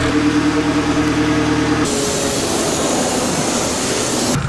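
Turbocharged LS-VTEC Honda Civic four-cylinder idling with a steady hum. About two seconds in it gives way to a loud, steady hiss of car-wash water spray over a soaped-up car, which stops suddenly near the end.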